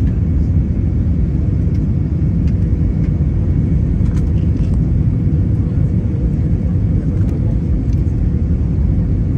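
Steady low rumble inside a jet airliner's cabin on descent: engine and airflow noise heard from a window seat over the wing, with a faint steady hum above it.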